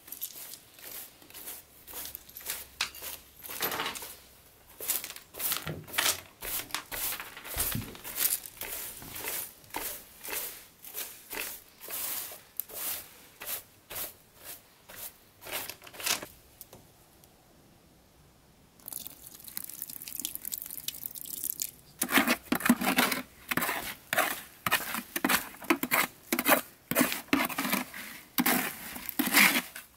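Hand broom sweeping grit off a mortared stone floor in quick repeated strokes. After a short pause about two-thirds of the way in, the sound changes to a trowel scraping and mixing wet mortar in a plastic bucket.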